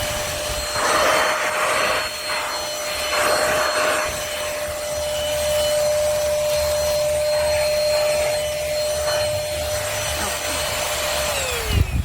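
Trucozie cordless stick vacuum cleaner running with a steady high whine and rushing suction, with louder surges in the first few seconds as it works the surface. Near the end it is switched off and the whine falls away as the motor spins down.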